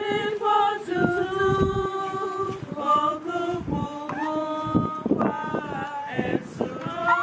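Voices singing a slow song with long held notes.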